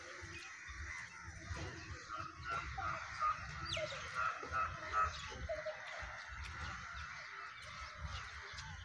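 A large flock of crows calling overhead, many caws overlapping, loudest about three and five seconds in, over a steady low rumble.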